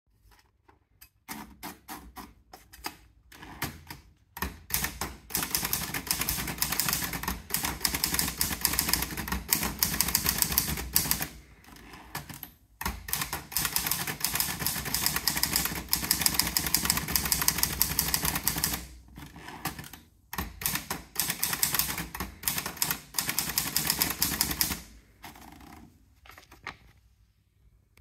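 Olivetti Lettera 22 manual portable typewriter being typed on: fast runs of sharp key-and-typebar strikes against the platen, broken by two short pauses, ending in a few scattered clicks.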